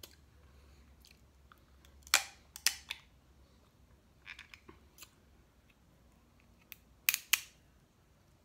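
Snow crab leg shell cracked and snapped apart by hand. The sharp cracks come in three short clusters: about two seconds in, again around four and a half seconds, and near the end.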